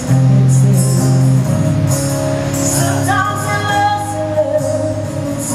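A woman singing live into a microphone over a band backing of held bass notes and light percussion hits.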